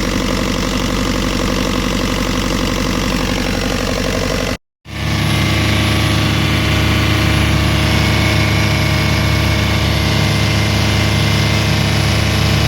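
65 HP Yanmar marine diesel engine running steadily inside a boat. About four and a half seconds in, the sound cuts out for a moment, and it comes back with a deeper, heavier hum.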